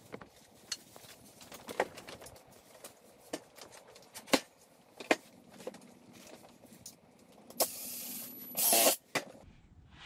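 Metal sawhorse brackets and short pieces of treated lumber knocking and clinking on a wooden table top as they are handled and fitted together, a sharp knock about every second, then a louder rasping noise for about a second and a half near the end.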